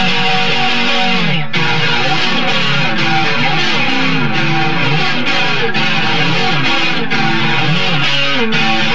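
Electric guitar playing a fast riff, its notes stepping up and down in quick succession.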